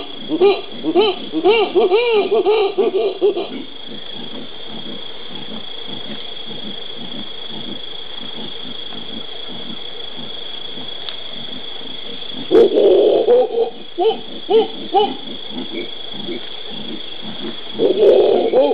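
Black-and-gold howler monkeys howling: a rapid series of rising-and-falling calls that stops about three and a half seconds in, then starts again about twelve seconds in and once more near the end.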